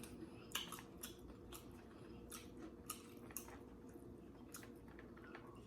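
Faint chewing: soft, wet mouth clicks at irregular intervals as food is eaten.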